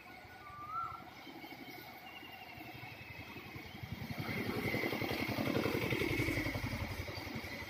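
A motorcycle engine running nearby, its pulsing note building from about three seconds in, loudest around five to six seconds, then easing off. A brief high chirp comes just under a second in.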